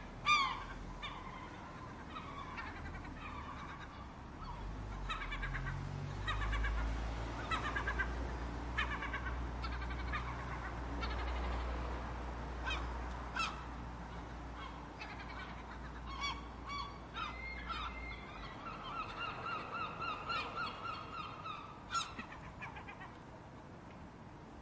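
Seagulls calling over and over, short squawks and wails overlapping. About twenty seconds in there is a quick run of repeated laughing notes. A low rumble lies underneath from about five seconds in until about eighteen.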